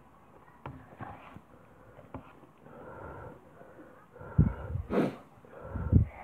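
A child eating a taco close to the microphone: faint mouth clicks while chewing, then loud breathy blasts of air on the microphone about four and a half, five and six seconds in.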